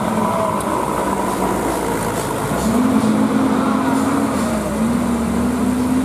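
Tour bus engine pulling uphill under load. Its note drops out briefly, comes back steady about two and a half seconds in, dips again a little after four and a half seconds, then climbs slowly.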